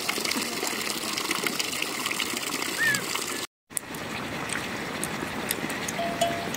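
Steady rush of running water, breaking off completely for a split second a little past halfway, then resuming.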